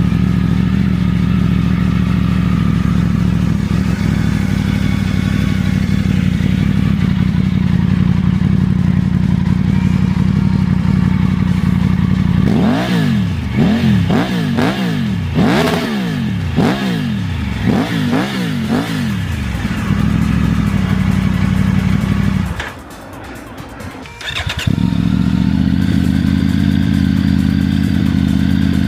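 Triumph Tiger 900's three-cylinder engine with an aftermarket exhaust, idling steadily. About 12 seconds in it is revved in roughly seven quick blips, each rising and falling, before it settles back to idle. Later the sound drops away for about two seconds and then the idle picks up again.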